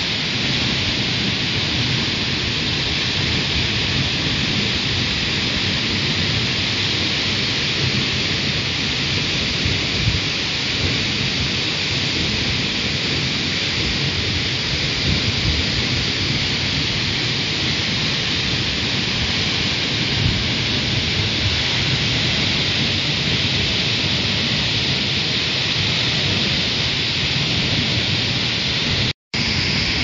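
Large waterfall plunging onto rocks: a steady, loud rush of falling water, a hiss over a low rumble. The sound cuts out for a moment near the end.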